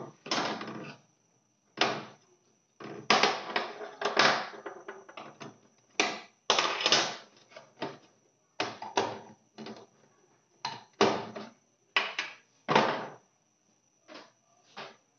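A string of short, uneven rubbing and scraping noises from PVC pipe and fittings being handled and worked by hand.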